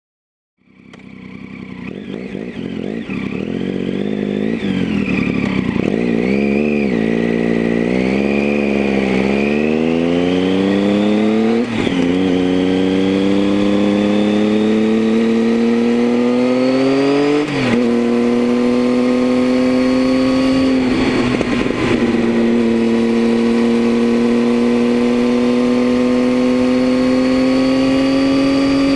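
Triumph Tiger 800's three-cylinder engine through a Leo Vince aftermarket exhaust, fading in and pulling along a winding road. The note rises and falls in the first ten seconds, then climbs gradually, with two brief breaks, the later one dropping in pitch like an upshift, before a steady, slowly rising cruise.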